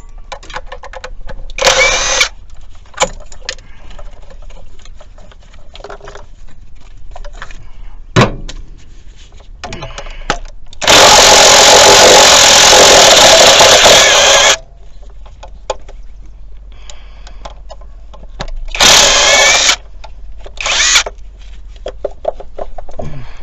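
Power tool, most likely an impact wrench, running in loud bursts while loosening bolts on a Jeep 3.7 V6 intake: a short burst about two seconds in, a long run of about three and a half seconds in the middle, and another short one near the end. Metal clicks and clinks of hand work come in between.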